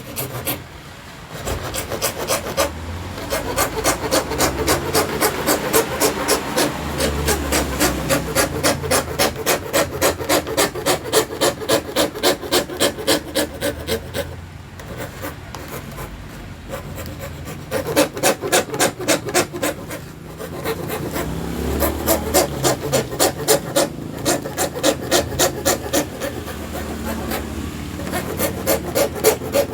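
Hand-sawing acrylic sheet with a small plywood handsaw: steady back-and-forth strokes at about two to three a second, stopping briefly twice partway through.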